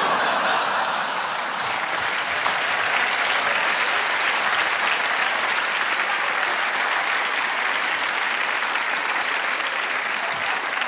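Theatre audience applauding: dense, even clapping that starts abruptly and holds steady.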